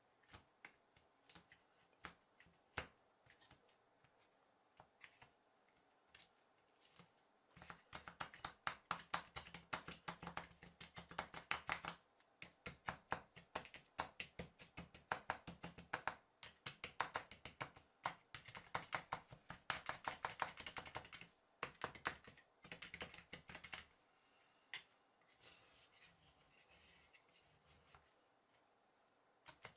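Two spatulas chopping and scraping ice cream mix on the frozen metal plate of a rolled-ice-cream maker. It starts with a few scattered taps, turns to rapid clattering tapping about a quarter of the way in, and thins out to occasional taps after about two-thirds.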